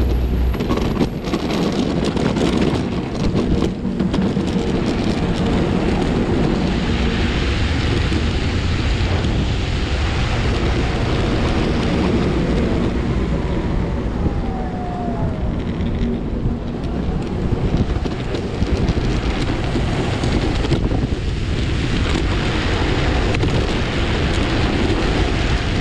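Steady wind rush buffeting the microphone over the rumble of wheels rolling on asphalt, as a Max 4 Pro hub-motor electric skateboard cruises at speed.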